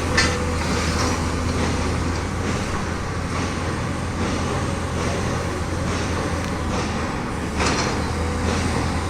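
Heavy machinery running steadily with a deep low drone, with two sharp knocks, one just after the start and one about three-quarters of the way through.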